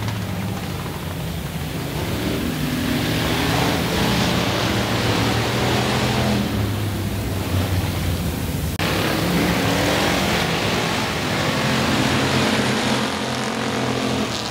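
Several dirt-track stock-car engines running hard, their pitch rising and falling as the pack laps the oval and passes by, over the noise of tyres on dirt.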